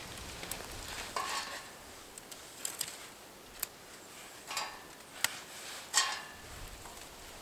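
Cookware and utensils being handled: several sharp clicks and clinks, with a few short scraping swishes in between.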